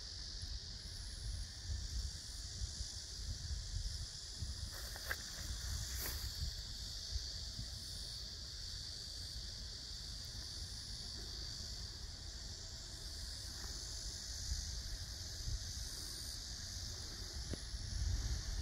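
A steady, high chorus of insects in summer vegetation, with a low rumble underneath.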